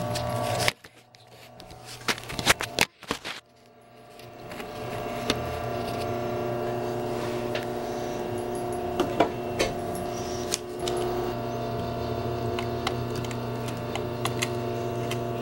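Singer 211 industrial sewing machine sewing the side panel onto a vinyl-and-foam motorcycle seat. A few sharp clicks near the start, then a steady motor hum comes up about four seconds in and runs on, with scattered ticks and clicks of the mechanism.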